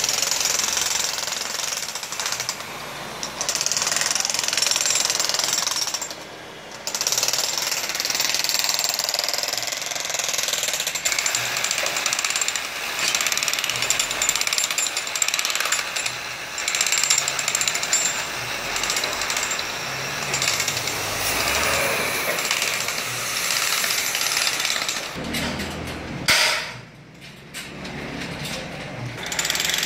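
Demolition hammer chipping at brick and concrete, hammering almost without a break. It stops briefly about six seconds in and again near the end.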